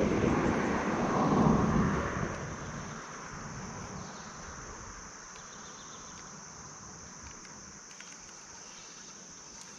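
Insects trilling steadily in a continuous high band, with a louder rushing noise over the first two seconds or so that fades away.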